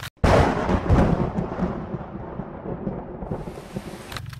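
Thunder sound effect: a sudden loud crack that rumbles and fades away over about three seconds.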